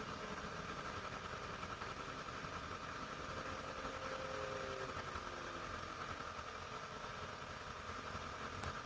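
Steady outdoor background noise with a constant faint hum and a faint tone sliding slightly downward midway; the siren is no longer sounding.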